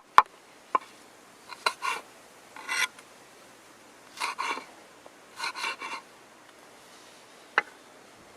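Knife cutting vegetables on a wooden cutting board: a few sharp knocks of the blade on the board, and about four short bursts of rasping, scraping strokes.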